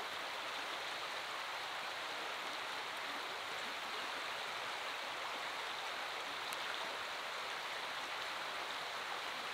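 Steady rushing of a flowing stream, an even wash of water noise that does not change.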